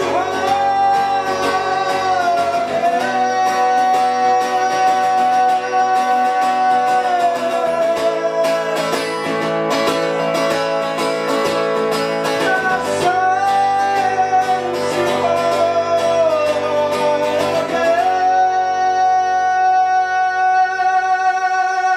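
Live acoustic guitar strummed under a man singing long held notes. About eighteen seconds in, the strumming stops and a last chord rings out under the held voice.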